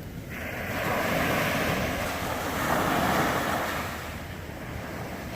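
Ocean surf washing onto a beach, the noise swelling and easing as the waves break, with some wind on the microphone.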